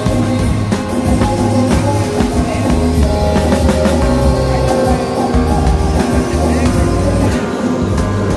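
Music with drums and guitar in a rock style, playing steadily with a pulsing bass line.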